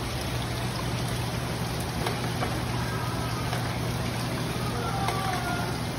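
Water running and trickling down the clear plastic chutes of a water-play wall, over a steady low hum.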